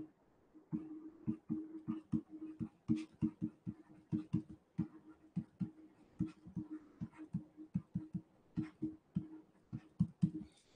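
Faint, irregular tapping and scratching of a stylus writing on a tablet: many short strokes, each cut off sharply with silence between.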